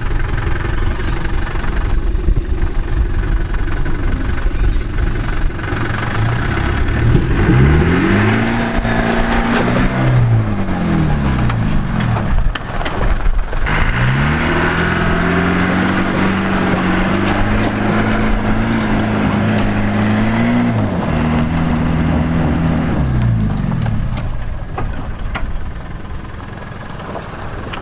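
The 2.5-litre 200 Tdi turbo-diesel engine of a 1993 Land Rover Defender 90 working under load as it drives off-road up a slope. The revs rise, fall away, rise again and hold, then drop back, over a steady rushing noise.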